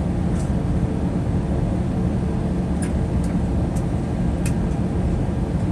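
Steady low rumble inside the cabin of an Airbus A321-200 on the ground after landing, with a steady hum over it and a few faint light clicks in the middle.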